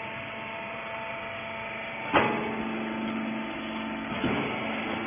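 Hydraulic rag baler's motor and pump running with a steady hum. A sharp metallic clank comes about two seconds in, and a lighter knock about four seconds in.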